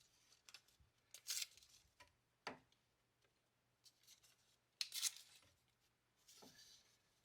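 Faint, short scratching strokes from marking a spot on a desk leg for drilling, in a few separate bursts, with one sharp click about two and a half seconds in.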